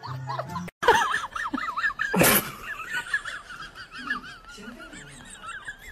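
A brown hen calling in a run of rapid, wavering squawks, with one sudden loud sharp sound about two seconds in.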